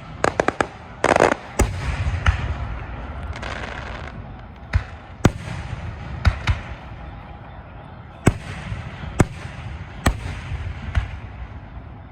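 Aerial fireworks going off: a quick rattle of cracks at the start, then single sharp bangs every second or so, with crackling in between.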